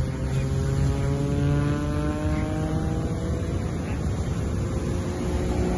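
Propeller airplane flying past, its engine drone falling slowly in pitch as it goes by, over a steady low background hum.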